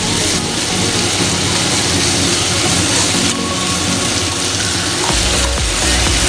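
Thin slices of beef frying in oil in a nonstick pan, giving a steady sizzle as they are turned with chopsticks. A heavy low bass comes in near the end.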